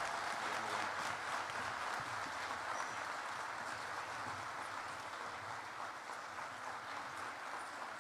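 Audience applauding steadily, the clapping slowly dying down.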